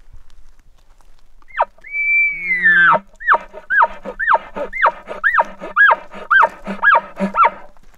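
A bull elk bugle: a high whistle that rises, holds and falls away, with a low grunt beneath it, followed by a run of about nine short chuckles at roughly two a second.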